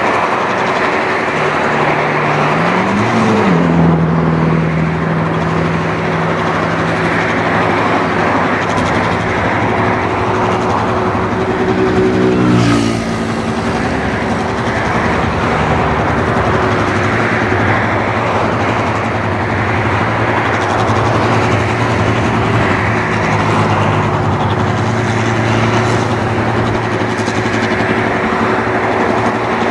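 Clayson 1545 S combine harvester running under load as it cuts and threshes rice: a steady loud engine-and-machinery din. The engine note rises about three seconds in and shifts again near the middle, where the sound briefly dips.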